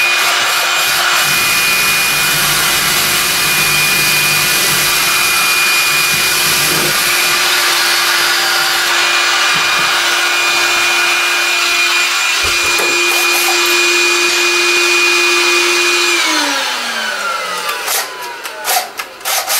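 Vacuum cleaner running steadily while a DeWalt cordless drill bores a pilot hole into a wooden wall stud. About three seconds from the end the vacuum motor is switched off and its tone winds down, followed by a few clicks as the drill's bit is swapped.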